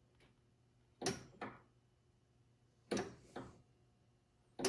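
Hydraulic lift control lever of a John Deere X758 garden tractor being worked back and forth with the engine off, clunking three times, each a quick double clunk, about every two seconds: the hydraulic system pressure is being relieved.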